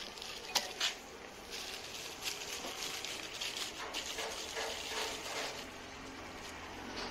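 Plastic packaging wrap crinkling and rustling as a small LED light is pulled out of its box and unwrapped, with two sharp clicks about half a second in.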